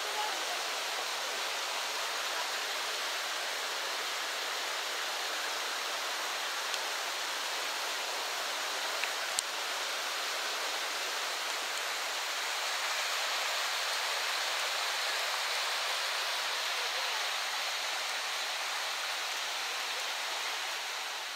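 Swollen, muddy river in flood after a storm, its water rushing and churning in a steady wash of noise.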